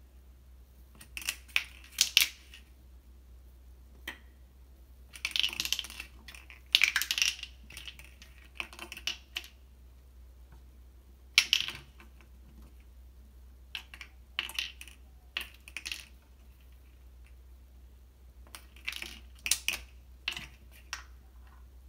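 A Bengal kitten batting a small hard object around a dry ceramic sink basin. The object clatters and rattles in short bursts of quick clicks every few seconds, with quiet pauses between.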